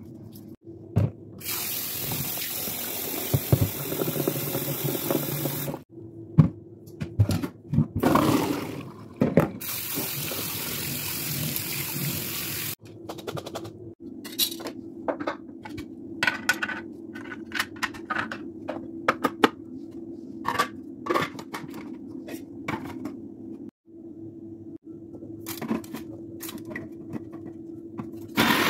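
A kitchen tap runs twice for a few seconds each, in the first half. Then come scattered sharp clicks and knocks of handling over a low steady hum.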